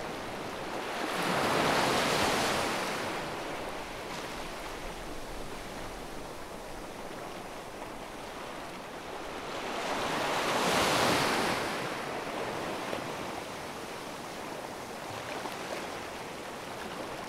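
Sea waves washing onto a beach, two waves breaking and rushing up about nine seconds apart over a steady surf hiss.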